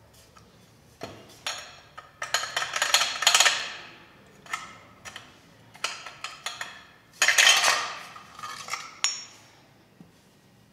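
A loose DB killer tube rattling and clanking against the inside of a 2017 KTM Duke's detached exhaust silencer as the silencer is shaken and worked to free it, in several bursts of metallic clatter with a sharp clank near the end.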